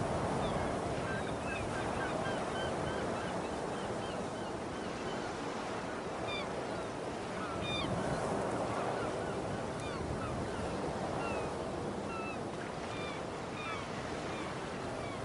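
Ocean surf washing in a steady rush, with many short bird calls chirping over it.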